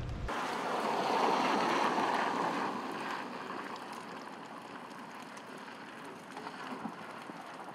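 Car tyres hissing on a wet, slushy road as a vehicle passes, swelling over the first couple of seconds and then fading as it moves away.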